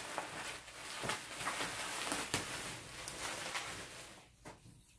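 Plastic bubble wrap rustling and crinkling as it is unwound and pulled off a long cardboard tube, with a few sharp crackles. It dies away about four seconds in.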